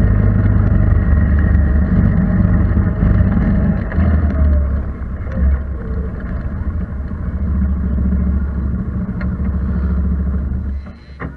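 ATV engine running at low speed, then shut off near the end, with a short click as it cuts out.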